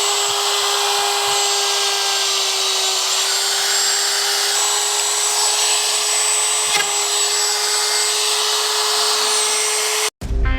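Handheld wood router running steadily at high speed with a constant whine, cutting hinge mortises into a wooden door jamb. It stops abruptly near the end.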